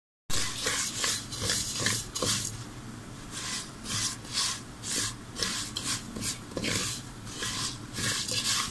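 A wooden spatula scraping and stirring rice grains around a nonstick pot as they toast in fat, in repeated strokes of about two to three a second, easing off briefly about a third of the way in.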